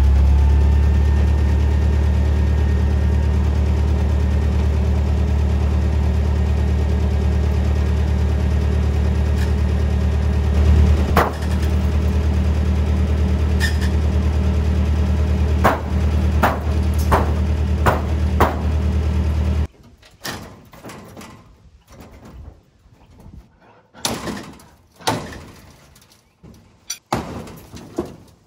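An engine idling steadily with a deep hum, a few sharp clicks over it, then shutting off suddenly about two-thirds of the way through. Scattered knocks and clicks follow.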